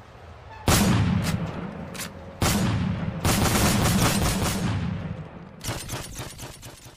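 Logo intro sound effects: a short swell, then a series of sudden heavy hits with a low rumble, each dying away, and a burst of rapid sharp cracks near the end.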